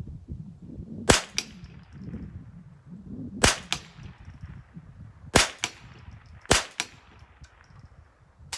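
Rifle shots fired one at a time: four sharp reports spaced one to two seconds apart, each followed about a quarter second later by a fainter second crack, then a weaker shot near the end.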